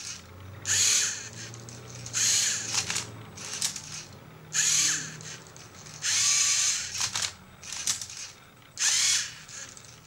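Lego Mindstorms NXT robot's motors and gears whirring in about five short bursts, each half a second to a second long, as it grips and turns the layers of a Rubik's Cube, with short plastic clicks between the bursts.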